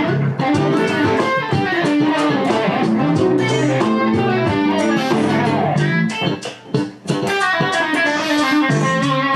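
Electric guitar improvising quick single-note lead phrases over a funky backing track in A with a bass line. The playing briefly thins out about six to seven seconds in.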